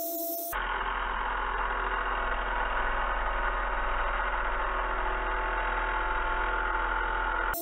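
Angle grinder cutting into a metal hoop on a wine barrel: a steady whirring grind. About half a second in it turns abruptly louder and duller, with a low hum under it.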